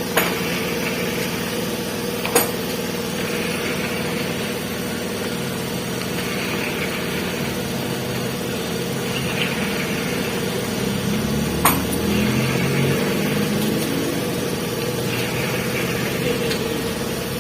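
An engine running steadily at idle with a constant hum, its pitch wavering briefly midway, and three sharp clicks of metal parts being handled.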